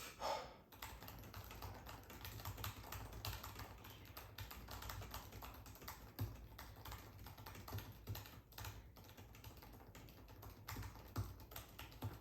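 Fast touch-typing on a MacBook Pro laptop keyboard: a dense, uneven stream of light key clicks.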